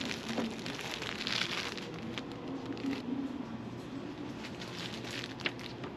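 Plastic packaging crinkling and rustling in short bursts as wrapped items on a shop display are handled, over a faint low hum.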